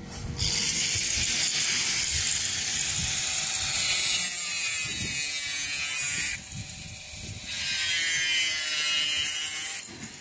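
Cordless drill driving self-tapping screws through stone-coated steel roof tiles into steel battens: a high, grinding whir for about six seconds, a short pause, then a second run of about two seconds near the end.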